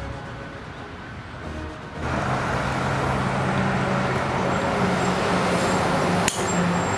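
Road traffic with a heavy truck's engine running steadily, starting about two seconds in, and one sharp crack of a driver striking a golf ball off the tee near the end.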